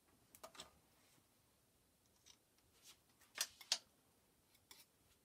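A few faint, irregular clicks and short scrapes of a metal palette knife against the paint palette while mixing oil paint, the sharpest pair a little past halfway.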